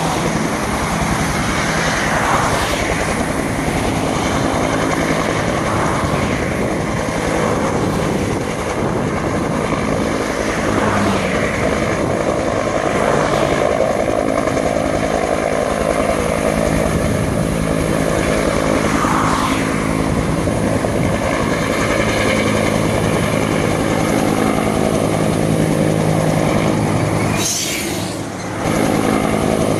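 Two-bladed Bell UH-1-type (Huey) firefighting helicopter running steadily close by, with a low, even rotor beat under the engine's whine as it hovers to fill its slung water bucket and then flies off. A brief sharp crackle with a short drop in level near the end.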